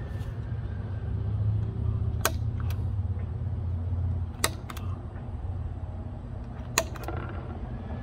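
About five sharp, irregularly spaced clicks of an awl's steel tip striking and scraping a metal gate-latch bracket as its screw holes are marked on a wooden post, over a low rumble that swells and fades in the first half.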